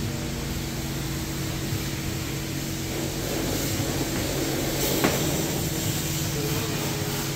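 Mark VII (WashTec) Aquaspray self-serve wash bay equipment running steadily with a low hum while foam flows through the foaming brush being scrubbed over the car, with a single sharp click about five seconds in.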